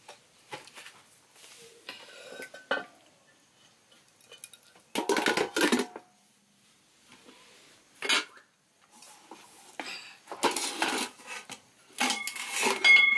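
Aluminium saucepan and stainless steel trays clattering and knocking together as the cooked food is covered, in several separate bursts, with a metal tray ringing on near the end.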